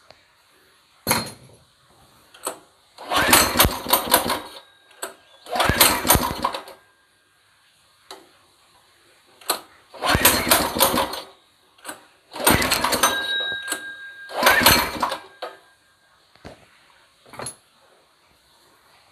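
New 200 cc four-stroke single-cylinder go-kart engine being started for the first time. It fires and runs for a second or two, then stops, about five times over, with quiet gaps in between.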